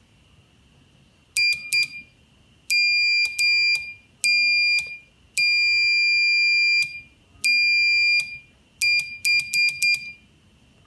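Buzzer on a relay-aided, closed-to-operate non-latching alarm circuit under test, giving a high steady tone in on-off beeps of uneven length: a few short ones, one of about a second and a half, then a quick run of short beeps near the end. It sounds only while the circuit is held closed.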